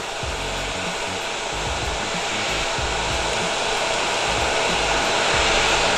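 Hot-air gun blowing steadily at 280–300 °C, heating the old instrument-cluster LCD's soldered contacts until the display comes loose; the hiss grows slightly louder over the seconds.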